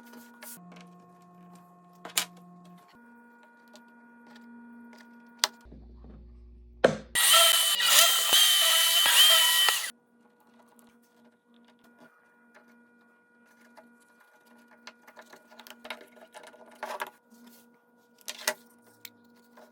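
A small electric drill runs for about three seconds near the middle, with a wavering high whine, as hinge holes are drilled or hinge screws driven into the wooden box. Light clicks and taps of handling wood and tools come before and after it.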